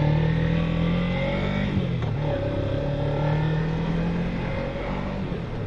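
Motorcycle engine under way, its pitch climbing steadily, dropping about two seconds in, then climbing again before easing off.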